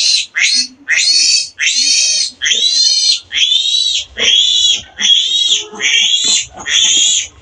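A three-day-old piglet squealing over and over while it is held and handled for vaccination: about eleven high, shrill squeals in a row, roughly one and a half a second.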